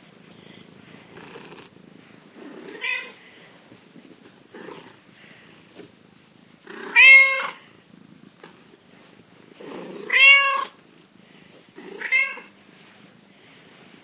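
Black cat meowing four times, a few seconds apart, while being petted; the middle two meows are the loudest and longest.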